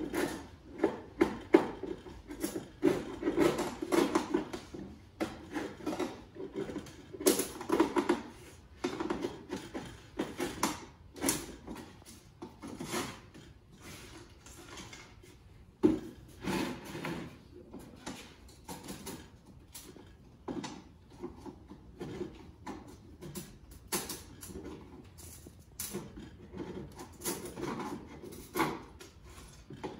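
Hardened glazing putty being chipped and scraped out of a wooden window sash with a chisel: an irregular run of scrapes and short clicks of the blade against the old putty and wood.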